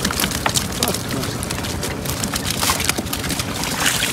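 Live small freshwater fish flopping and slapping against a wooden boat's deck and net, with the splash of water as they are handled: a dense, irregular patter of quick slaps and taps.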